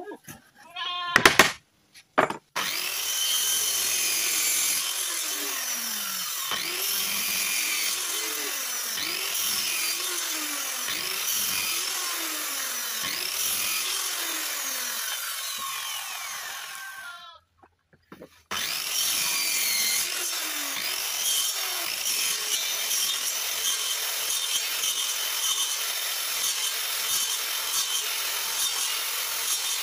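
A few sharp hammer blows on nails, then a handheld electric circular saw cutting through a wooden board, its pitch repeatedly dipping and recovering under load. The saw stops for about a second a little over halfway through, then starts again and keeps cutting.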